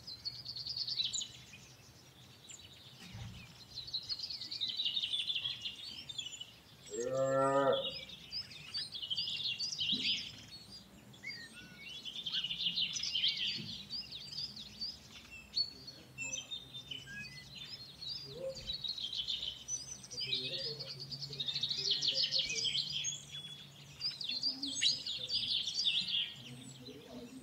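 Farmyard ambience: many small birds chirping and twittering throughout, with a cow mooing once, about a second long, some seven seconds in.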